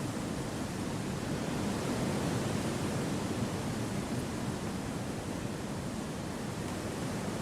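Steady wind rushing through forest trees, an even, unbroken rush with no distinct events, swelling slightly a couple of seconds in before easing back.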